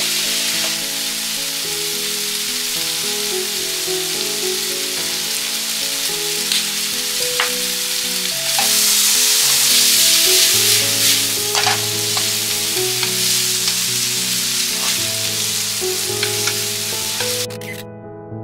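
Pork belly and white leek stir-frying in a frying pan: a steady sizzle with the spatula clicking against the pan now and then. The sizzle swells louder a little before the middle, then stops suddenly near the end, leaving background music.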